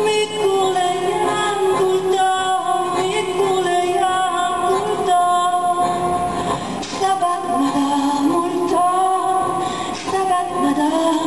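Live music from a button accordion: held reedy chords under a melody, with a woman's voice singing along in long, wavering notes.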